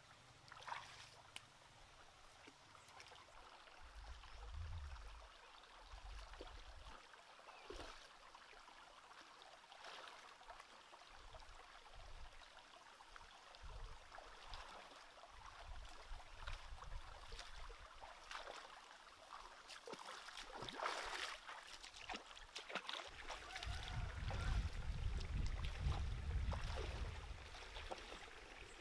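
Faint water trickling and sloshing with scattered small splashes and knocks, and a low rumble over the last few seconds.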